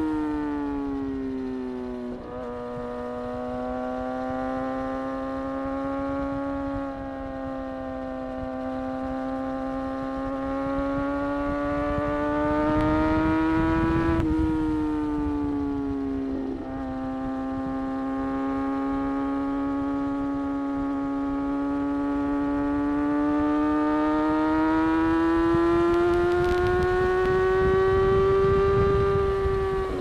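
Kawasaki ZX-6R's inline-four engine heard from the rider's seat, running at steady cruising revs. Its pitch slowly rises and falls, dropping sharply about two seconds in and again around sixteen seconds, with wind noise underneath.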